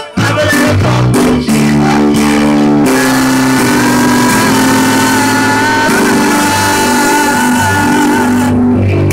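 Live amplified church music: an electric keyboard plays sustained chords while men sing into microphones, holding long notes through most of it.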